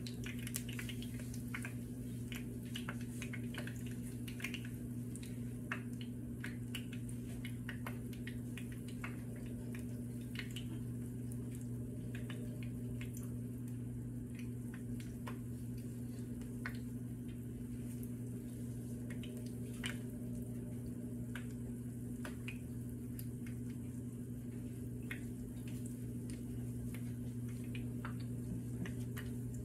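Fritter batter frying in hot oil in a pan: scattered pops and crackles of the oil over a steady low hum.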